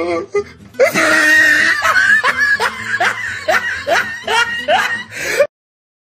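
Loud laughter: a run of quick ha-ha pulses, each rising in pitch, lasting about four and a half seconds and cutting off abruptly into dead silence near the end.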